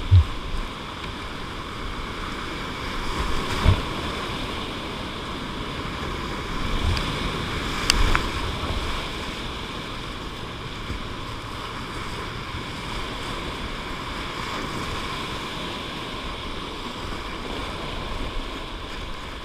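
Steady rushing of whitewater rapids close to the kayak, with water splashing over the camera. A few sharp thumps cut through it: one right at the start, another just before four seconds and a last one about eight seconds in.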